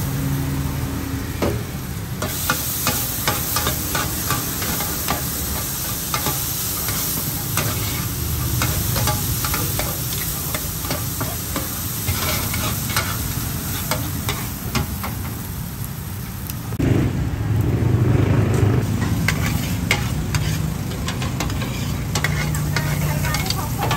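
Two metal spatulas scraping and clattering on a flat black griddle as a crispy taro and oyster omelette fries, rapid irregular clinks over steady sizzling. A low rumble swells about seventeen seconds in.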